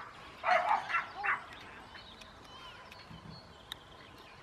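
A dog barking three short times in quick succession, within the first second and a half.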